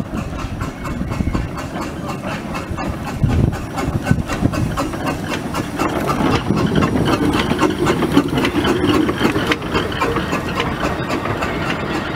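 Narrow-gauge steam locomotive, a Victorian 0-4-2 saddle tank, running slowly past along a platform: steam and the even clicking of its wheels on the track. It gets louder from about six seconds in as the engine passes close.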